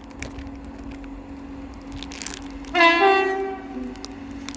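Class 166 diesel multiple unit arriving, with a steady engine drone. About three seconds in it sounds its horn once, a short blast that steps up from a lower note to a higher one.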